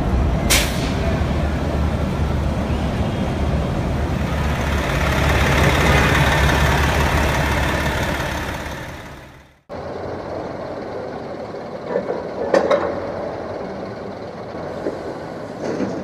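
City street traffic with a heavy vehicle's engine running low and a brief sharp hiss about half a second in, the noise swelling and then fading out about halfway through. After the fade a quieter traffic background follows, with a few sharp clicks and knocks a little later.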